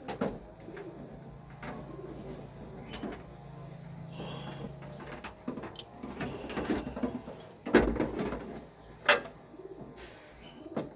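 Hand-work clatter on a car door during a power-window repair: scattered clicks and knocks of tools and parts, a low steady hum for about four and a half seconds near the start, and two sharp knocks, the loudest sounds, in the second half.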